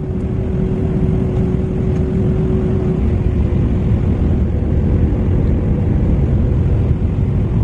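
Airliner cabin noise heard inside the cabin: a loud, steady engine and airflow rumble, with a steady hum that fades about three seconds in.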